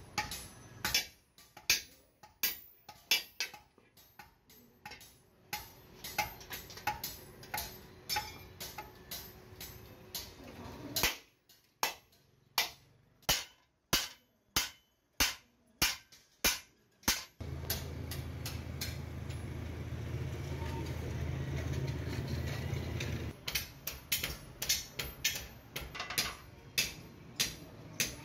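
Hand hammer striking a steel hoe blade on a small anvil: sharp, ringing metal blows at about one to two a second. Partway through the hammering stops for several seconds while a steady humming noise runs, then the blows resume.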